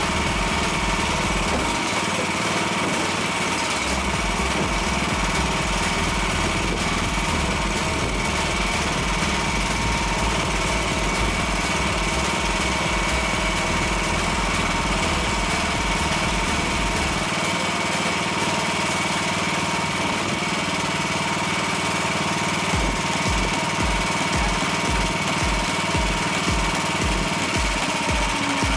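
Chinese mini excavator's small engine idling steadily, with a thin steady whine over it.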